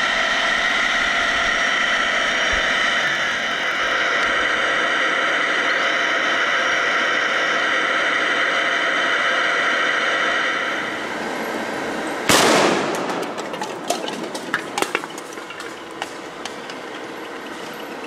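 A steady machine drone with a high whine, then a sudden loud blast a little past twelve seconds in, followed by a few seconds of scattered crackles and pops.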